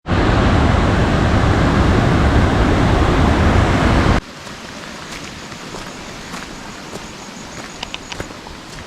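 Loud, steady rush of a waterfall's falling water. After about four seconds it cuts suddenly to a much quieter rush of water, with a few faint clicks and a faint high-pitched repeated chirping.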